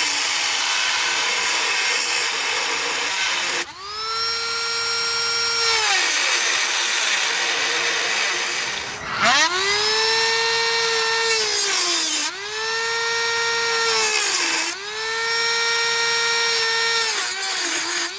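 Power drill run in repeated bursts, trying to back out a stuck, stripped hinge screw from a door. Its motor whine climbs quickly and then holds steady on each trigger pull, about five times, with harsher rasping stretches in between.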